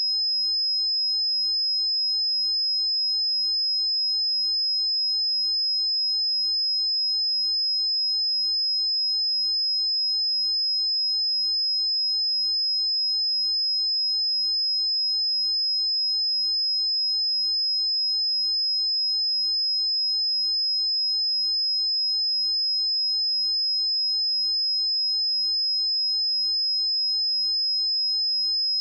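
A pure electronic sine-wave test tone at 5101 Hz, a single high-pitched steady tone held at constant level with no change.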